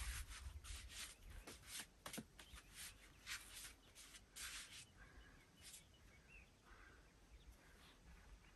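Faint rustling and scraping as a person handles and lifts an elk antler shed among brush and rock, busiest in the first half and thinning out later.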